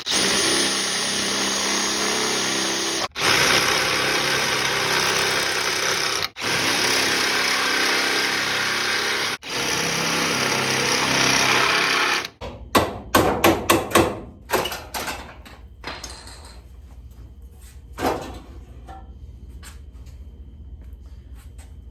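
Electric drill running under load, drilling out spot welds in the Civic's sheet-steel radiator support, in long stretches that cut off abruptly three times. About twelve seconds in it stops, and a quick run of sharp metallic knocks follows. One more knock comes later over a low hum.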